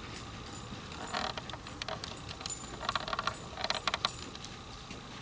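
Metal clinking and jingling of a dog's collar and leash hardware as the dog heels and turns, in three short bursts about one, three and four seconds in.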